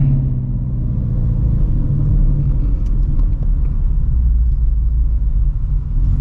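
Straight-piped Shelby GT350's 5.2-litre flat-plane-crank V8, on long-tube headers, running at low steady revs in slow traffic with a loud, deep exhaust rumble. A steadier engine note in the first couple of seconds gives way to a lower rumble.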